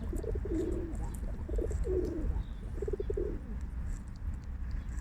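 Pigeon cooing: three low, pulsed coos in a row, the last ending about three and a half seconds in, over a steady low rumble.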